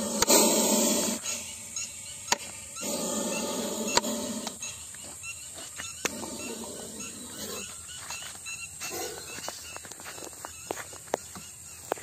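Indian spectacled cobra hissing inside a plastic pipe: two long hisses, one at the start and another about three seconds in, then fainter ones. A few sharp knocks of the pipe being handled.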